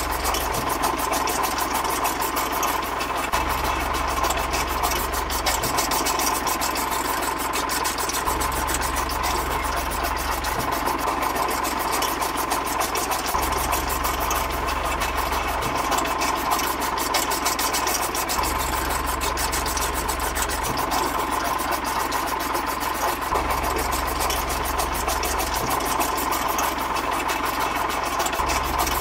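Small electric motor of a miniature auger running steadily under load as the spiral bit bores into dry mud, with a constant whine.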